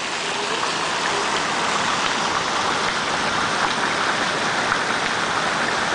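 Water jets of the Tyler Davidson Fountain splashing into its basin, a steady, even rush of falling water.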